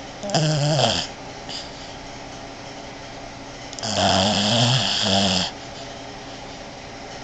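Boston Terrier snoring in her sleep: two loud snores, a short one falling in pitch near the start and a longer one about four seconds in.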